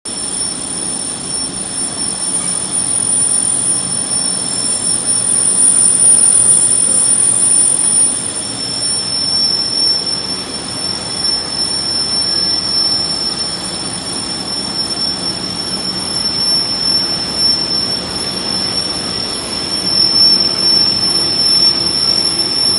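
Aluminium foil printing machine running: a steady mechanical noise with two constant high-pitched whines over it.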